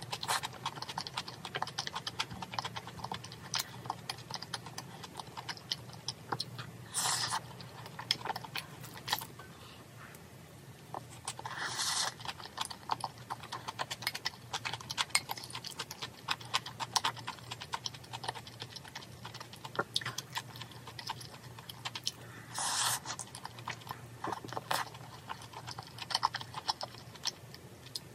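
Close-miked eating: a steady run of soft wet chewing clicks as rice mixed with braised chicken is eaten from a bowl with a spoon, with a few brief louder bursts about 7, 12 and 23 seconds in. A faint steady low hum sits underneath.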